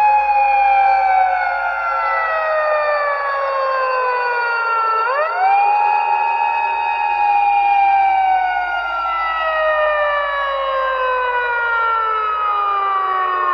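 Emergency siren wailing with several tones at different pitches sounding together. The tones sweep quickly up about five seconds in, hold briefly, then slide slowly down over the next several seconds.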